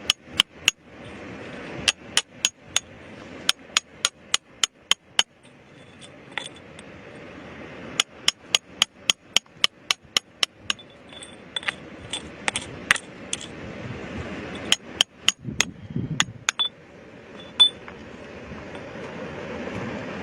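A hammer striking rock in quick runs of sharp blows, about three a second, with short pauses between the runs. Some blows near the middle clink with a brief metallic ring.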